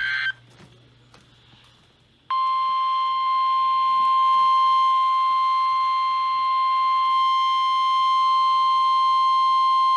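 A brief electronic data burst right at the start, then, about two seconds in, a single steady alert tone begins and holds unbroken to the end. It is the NOAA Weather Radio 1050 Hz warning alarm tone that comes before a National Weather Service warning broadcast.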